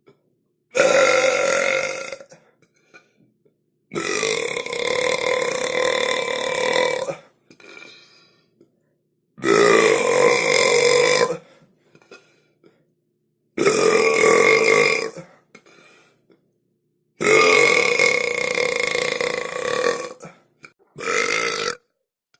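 A person burping: six loud, drawn-out belches with short silent gaps between them. The second and fifth each last about three seconds, and the last is short.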